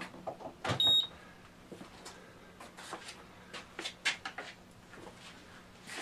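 Summit SWC1530 wine cellar refrigerator's digital control panel giving one short, high electronic beep about a second in as the unit is switched on. After it, a faint steady low hum and scattered light clicks and knocks.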